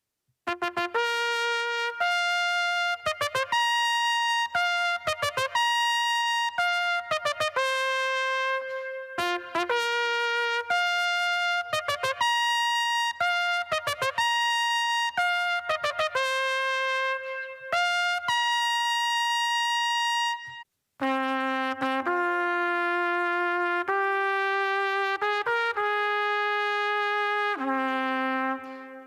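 Solo trumpet playing a melody of separately tongued notes; after a short break about twenty seconds in, it goes on in a lower register with longer held notes.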